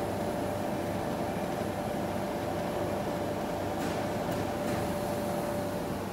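Steady running hum of the laser machine's fans and blowers, with a steady whine that stops near the end and a few faint ticks about four seconds in.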